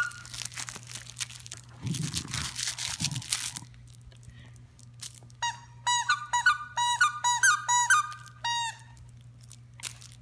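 Squeaker inside a plush toy squeaking about ten times in quick, uneven succession as a dog bites down on it, each squeak a short honk-like note. Before that, a few seconds of rustling.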